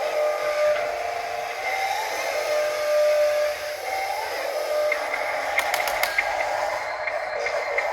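Electric motors of radio-controlled model construction machines whining, pitch rising and then holding steady several times, with a few sharp clicks about six seconds in.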